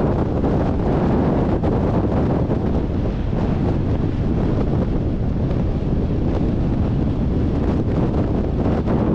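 Steady wind rushing over the microphone of a motorcycle-mounted camera while the bike rides along at road speed.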